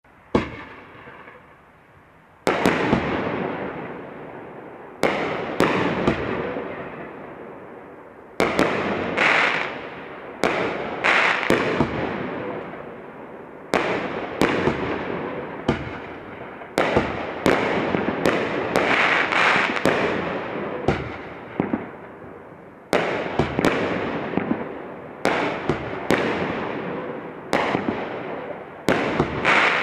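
A 500 g, 16-shot consumer firework cake (Treasure Digger Double Breaks) firing its shots one after another. After one bang at the start and a short pause, sharp bangs come every second or so, many in close pairs as each shell breaks twice, over a steady noisy rush that swells after each burst.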